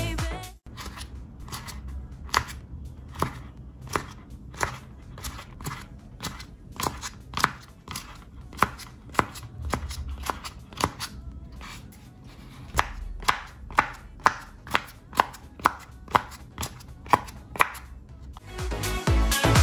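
Pop-it fidget toy bubbles pushed through one at a time by fingertips, each giving a sharp little pop. The pops come irregularly at first, then in a steady run of about two a second near the end.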